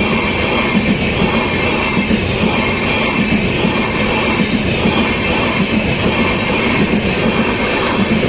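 A long-distance express's LHB passenger coaches rolling past close by at speed: a steady loud rumble with a thin, high steady wheel-on-rail hiss over it and a regular clatter of wheels over rail joints.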